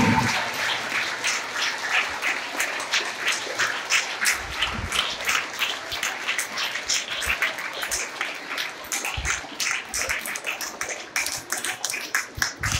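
Audience applauding: many hands clapping in a dense, irregular patter throughout.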